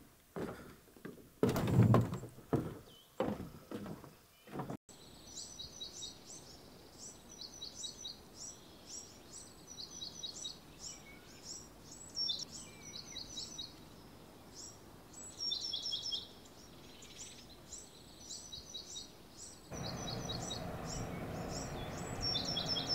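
A few loud wooden knocks and thumps in the first few seconds, then songbirds chirping in short, high, repeated phrases. About three seconds before the end, the low hum of a distant motorboat comes in under the birdsong.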